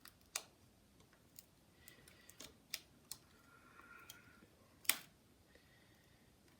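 Scattered small clicks and taps of fingers and a tool prying at the inside of an iPod Nano 5th generation, with a faint squeak between about three and four seconds in and the loudest click near five seconds.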